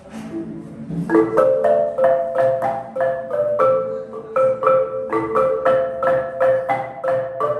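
Marimba de chonta played with mallets: a few soft notes, then from about a second in a steady, repeating figure of struck wooden bars at about three notes a second.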